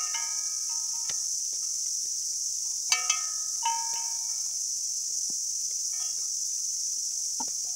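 Steady high insect chirring, over which clusters of short ringing clinks sound at the start, about three seconds in and around six seconds, with a few dull knocks between: hens pecking at tuned glass bottles part-filled with liquid and at hanging metal bells.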